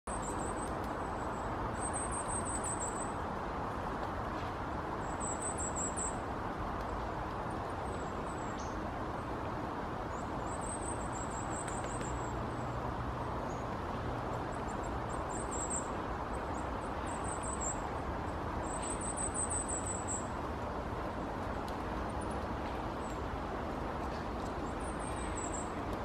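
Short, very high, thin calls of a small songbird, repeated in little runs every second or two, over a steady low background rumble.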